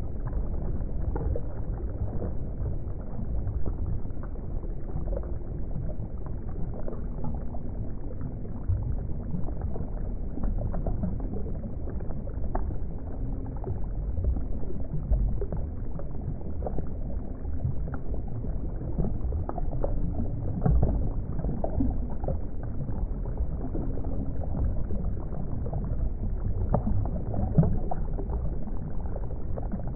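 Steady low rumble of moving water, with scattered small bubble pops and clicks throughout.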